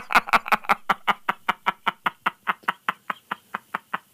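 A man laughing hard: a long string of rhythmic 'ha' pulses, about five a second, that slowly fade toward the end.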